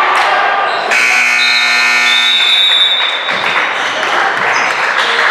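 Basketball scoreboard buzzer sounding once for about two seconds, starting suddenly about a second in, over gym crowd noise.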